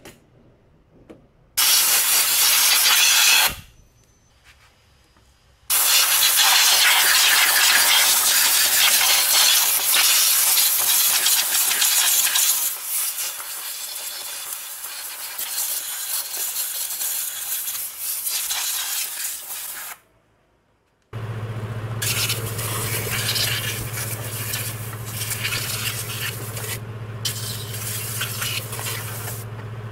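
Compressed air from a compressor blow gun blasting to clean scooter CVT parts: a short blast, then a long one of about 14 s. About 21 s in a motor starts running with a steady low hum, with further shorter blasts of air over it.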